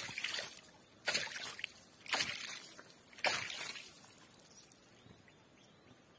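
A hooked tilapia thrashing at the water's surface: four splashes about a second apart, each fading quickly.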